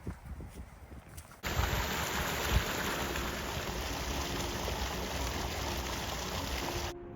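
Steady rush of running water, like a stream, starting abruptly about a second and a half in and cutting off just before the end.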